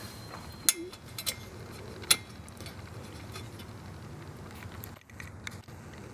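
A few sharp, light metallic clicks and taps of hand tools and small parts being handled at a motorcycle's rear axle, over a steady low hum.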